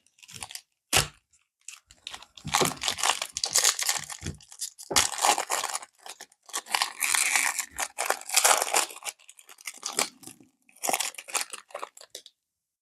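Trading card pack wrappers being torn open and crinkled by hand, in a series of separate rips and rustles with a few sharp clicks. The sound stops suddenly near the end.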